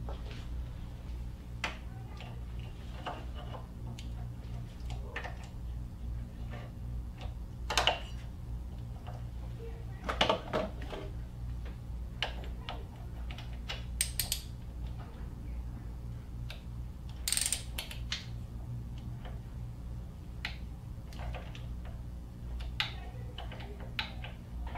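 Hand ratchet and metal socket tools working bolts on an engine: scattered ratchet clicks and a few louder metal clinks, over a steady low hum.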